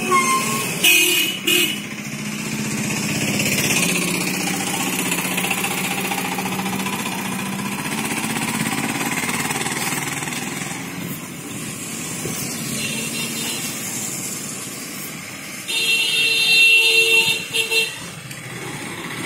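Street traffic: a bus engine running at low speed with motorcycles passing close by. A vehicle horn gives two short toots about a second in, and near the end a longer horn blast of about two seconds breaks into a few short toots.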